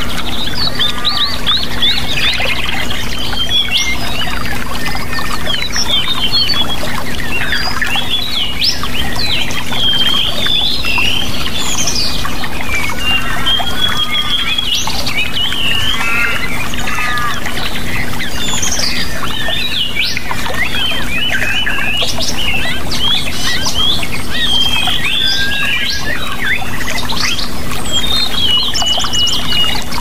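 A dense chorus of songbirds, many overlapping quick chirps, whistles and trills, over a steady rush of water.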